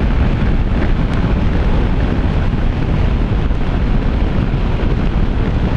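Steady, loud wind buffeting on the microphone of a moving Honda ADV 160 scooter, with the scooter's running and road noise mixed underneath.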